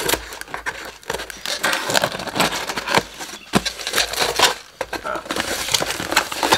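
Scissors slicing through packing tape along a cardboard box's seam, with crackling tape and scraping cardboard, then the box flaps being pulled open near the end.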